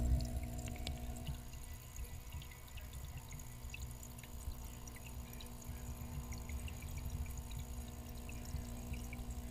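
Aquarium water heard from inside the GoPro's waterproof housing while it is underwater in a fish tank: a muffled low rumble of moving water with small scattered ticks from bubbles, over a faint steady hum. It is louder in the first second or so, then settles.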